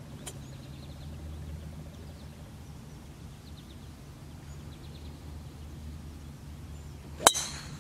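A golf driver strikes a teed ball once near the end, a single sharp impact, over a steady low hum.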